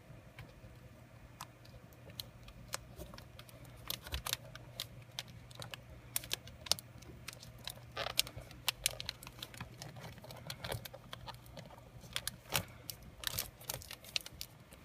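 Irregular light clicks and taps of plastic and metal parts as a laptop's display panel and bezel are handled and fitted, with a faint steady hum underneath.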